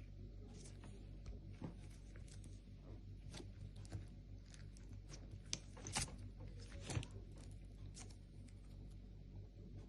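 Slime being handled, giving scattered soft clicks and crackly pops, with the loudest few about six to seven seconds in.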